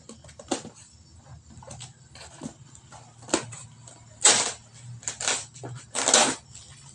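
Large scissors slicing and scraping through packing tape on a cardboard box: a few short rasping cuts, the loudest about four and six seconds in.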